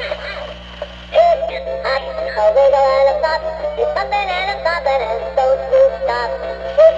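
Animatronic Easter bunny toy playing its song: a synthetic, electronic-sounding voice sings over a tinny backing tune from the toy's small speaker. The song drops quieter for about a second near the start, then comes back in.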